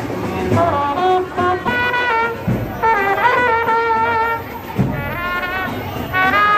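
Music: a melody played in held notes that step up and down, over a low drum beat that falls about every two seconds.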